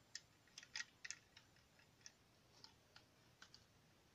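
Faint, scattered clicks of plastic Lego bricks as a Lego rubber-band gun is handled, most of them in the first second and a half.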